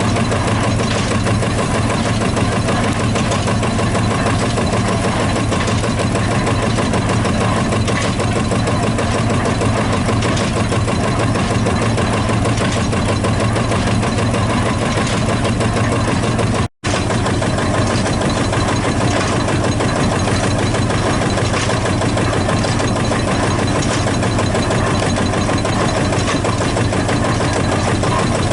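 Field Marshall tractor's single-cylinder two-stroke diesel engine running steadily, with a rapid, even beat. The sound drops out completely for an instant about seventeen seconds in.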